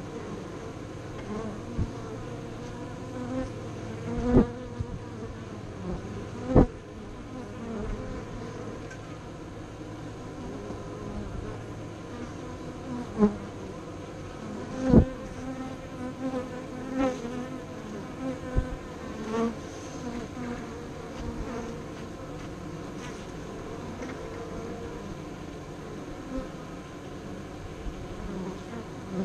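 Honey bees buzzing at the hive entrance: a steady hum, with several brief, louder peaks as single bees come close.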